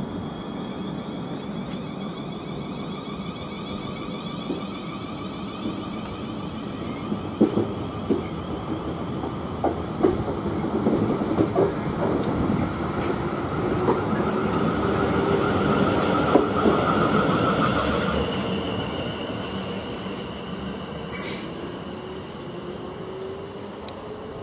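Class 444 Siemens Desiro electric multiple unit pulling away. Its traction motors whine in tones that rise slowly as it gathers speed, and its wheels click sharply several times over the rails.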